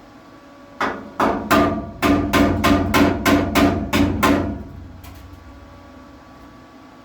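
Hammer blows on sheet metal, about eleven strikes: a few spaced ones, then a steady run of about three a second, each ringing briefly, as a repair panel is tapped into shape.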